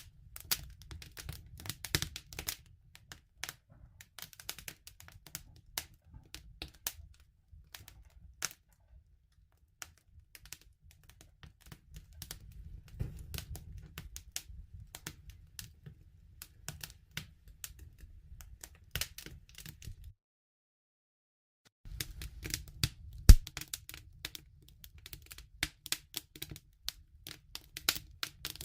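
Wood campfire crackling: irregular sharp snaps and pops over a low rumble of the burning fire, with one louder pop about 23 seconds in. The sound cuts out completely for about two seconds two-thirds of the way through.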